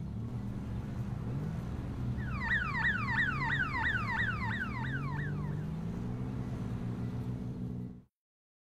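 Traffic sound effect: a low rumble of idling engines, with an electronic siren of quick falling tones, about four a second, from about two to five seconds in. The sound cuts off suddenly near the end.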